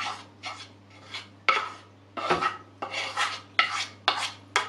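Spoon scraping and knocking against a bowl as maida flour is tipped into the mixing bowl: a run of short scrapes, roughly two a second.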